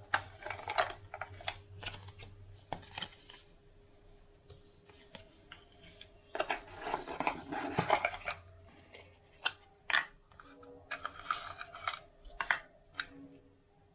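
Cardboard packaging being handled by hand: light knocks, scrapes and rustles of card and paper, with a busier stretch of rustling about six to eight seconds in and a few sharp single clicks after it.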